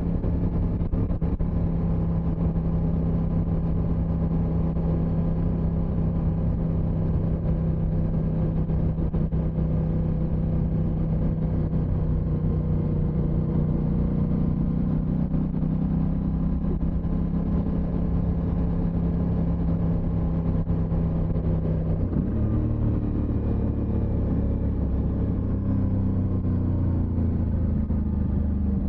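Aprilia motorcycle engine running at a steady pitch on the move, its note dropping lower about three-quarters of the way through.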